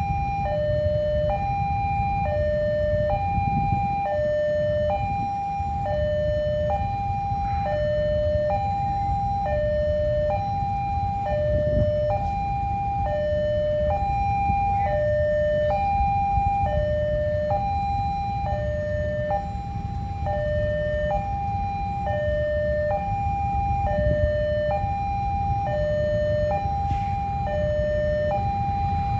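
Railway level-crossing warning alarm sounding its two-tone chime, a higher tone then a lower one, a pair roughly every two seconds and steady throughout, the signal that a train is approaching and the crossing is closed. A low rumble runs underneath.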